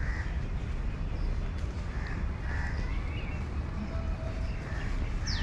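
Crows cawing several times at irregular intervals among roadside trees, over a steady low rumble of outdoor background noise; another bird gives a quick falling whistle near the end.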